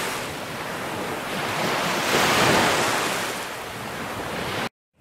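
A loud rushing noise like surf or wind, swelling to a peak in the middle and easing off, then cutting off abruptly near the end.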